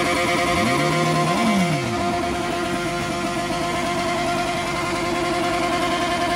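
Sport motorcycle's engine held at steady high revs during a stationary burnout, with the rear tyre spinning and hissing against the pavement. About a second in, a second engine briefly revs up and drops back.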